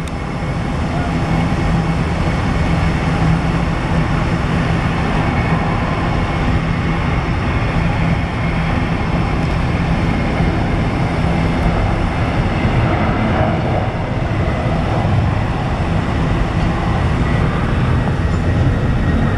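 Steady, loud rumble of jet engines from a four-engine Boeing 747-400 taxiing at low power across the airfield, with no breaks or sharp events.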